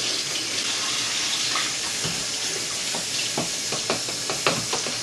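Water running from a kitchen tap, a steady rush, with a scatter of light clicks and taps in the second half.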